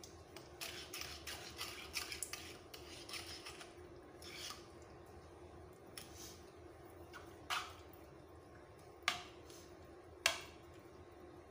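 Raw chicken pieces squelching in a sticky marinade as a hand mixes them in a pot, with rapid small wet clicks and squishes. Later a spoon stirring the meat knocks sharply against the pot three times.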